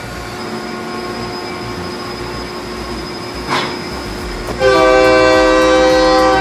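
A train horn sounds loudly for about two seconds near the end: one steady, held chord of several tones. Before it there is a steady rumble of machinery and a brief sharp sound.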